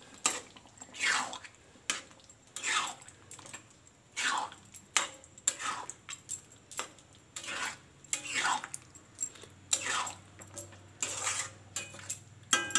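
A spatula stirring thick butter chicken gravy in a kadhai, scraping across the pan in strokes roughly every second and a half, with short clicks against the pan between them.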